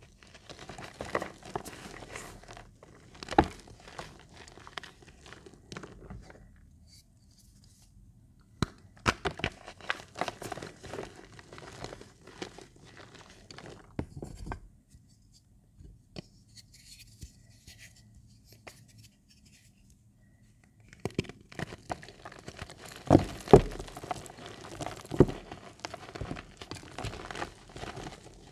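Reformed gym chalk crunching and crumbling as it is crushed and rubbed between bare palms. It comes in spells of gritty crackle with many small sharp crunches, with two short pauses, and the loudest crunches fall a few seconds from the end.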